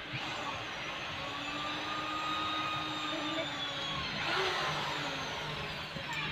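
A motor engine runs steadily in the background, its pitch drifting slowly up and down.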